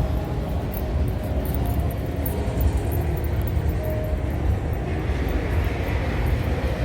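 Steady low rumbling background noise of a large indoor exhibition hall, with a faint hum of distant sound mixed in.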